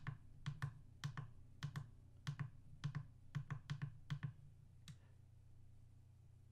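A run of quick, faint clicks from a FrSky Taranis X9D Plus transmitter as its plus key is pressed over and over, about two or three a second, scrolling through the radio's sound list; the clicks stop about five seconds in.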